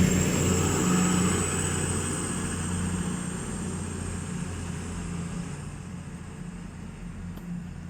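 East Midlands Railway Class 222 Meridian diesel multiple unit pulling away, its underfloor diesel engines running with a thin high whine above them. The sound fades steadily as the train draws off.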